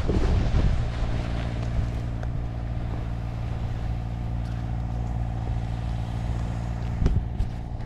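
A tractor engine running steadily at an unchanging pitch, after a rush of wind dies away in the first second. A few short knocks come near the end.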